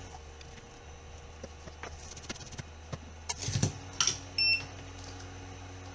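Light clicks and taps of tools and parts on a workbench mat, with one short electronic beep about four and a half seconds in, over a steady low hum.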